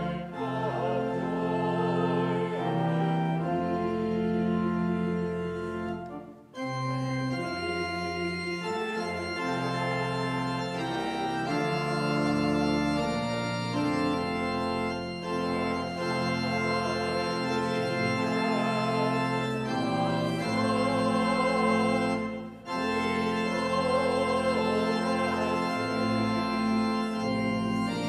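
Church organ playing held hymn-like chords in phrases, with brief breaks about six seconds and twenty-two seconds in.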